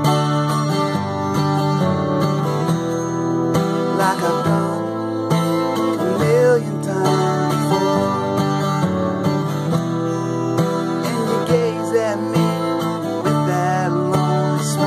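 Steel-string acoustic guitar strummed steadily through a chord progression, with a man's voice singing a few short, wavering phrases over it.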